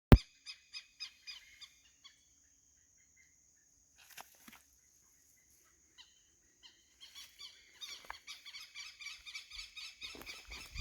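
Birds calling in rapid series of short, harsh repeated notes, sparse at first and then a dense chorus in the second half, over a steady high-pitched tone. A sharp click at the very start.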